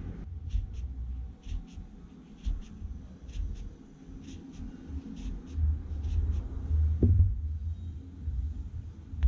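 Hands working crochet thread close to the microphone: low rubbing and handling noise, with pairs of light ticks about once a second, then a single thump near the end.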